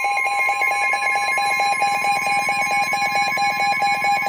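Emergency weather alert attention tone announcing a flash flood warning: a loud steady high tone with a second tone beeping rapidly over it, like a ringing alarm.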